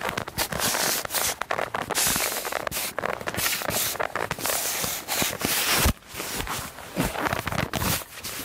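Dry reeds and clothing rustling and crackling in irregular spurts as a man kneeling in the reeds shifts and handles a long pole, with a brief lull about six seconds in.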